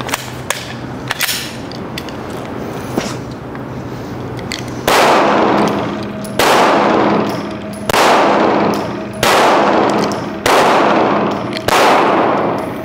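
9 mm Glock pistol fired slowly at an indoor range: six shots about one and a third seconds apart, beginning about five seconds in, each trailing off in a long echo. Before the shooting come a few faint clicks of gun handling.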